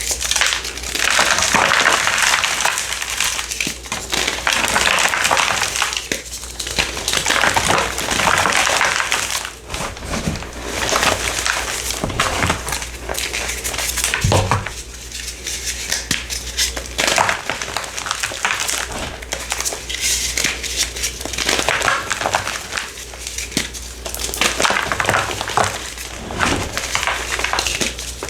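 A crumbly purple block being crushed and crumbled, a crisp grainy crunching that comes in repeated surges with an occasional dull knock.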